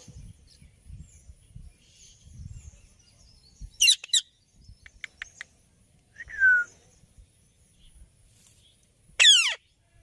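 Indian ringneck parakeets calling with short, harsh screeches: a loud double call about four seconds in, a softer falling note a couple of seconds later, and a loud falling call near the end.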